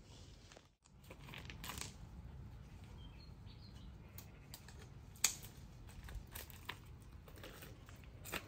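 Leaves and twigs rustling with scattered small clicks as fruit is picked by hand from a tree, with one sharper click about five seconds in.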